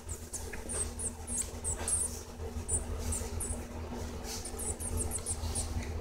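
Young Cuban grassquits calling: a string of short, very high, squeaky chirps over the first three seconds, then another quick run of about half a dozen near the end, over a low steady hum.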